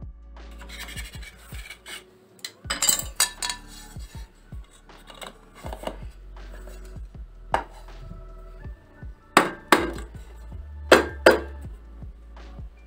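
Knocks and clinks of a cake tin being handled as a baked cake is turned out, sharp strikes about 3, 7.5, 9.5 and 11 seconds in, over soft background music.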